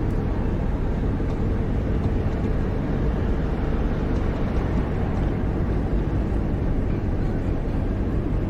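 Steady low rumble of city street traffic and engines, an added sound-effect ambience track.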